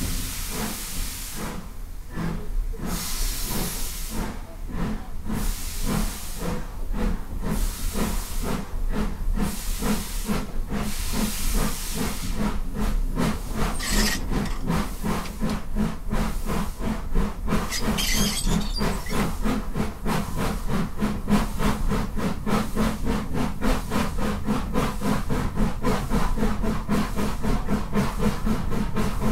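Midland 4F 0-6-0 steam locomotive 43924 pulling away under load: heavy exhaust chuffs with steam hiss, slow at first and speeding up steadily into rapid beats. Two brief sharp hisses of steam come about halfway through.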